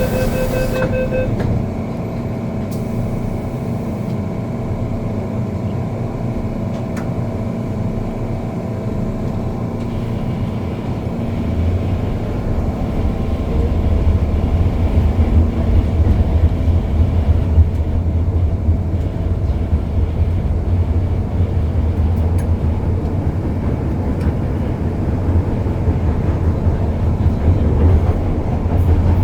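Inside an MTR M-Train carriage: a rapid beeping tone stops about a second in, then the train hums steadily. About twelve seconds in, a low rumble from the moving train grows louder and stays loud.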